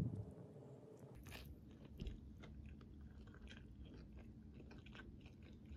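A bite into seeded bread topped with scrambled egg: a soft thump at the start, a crunch about a second in, then chewing with many small crunchy clicks.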